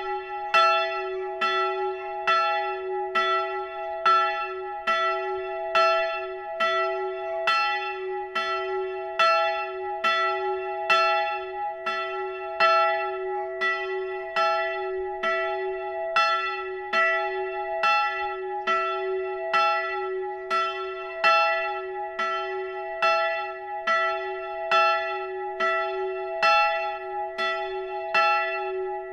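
A single swinging church bell ringing in a steady, even rhythm of strokes, each stroke ringing on into the next. This is the pre-ringing with one bell that calls to a service half an hour before it begins.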